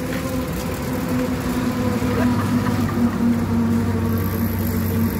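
Steady hum of a vehicle engine running at road speed, with a low rumble of road and wind noise.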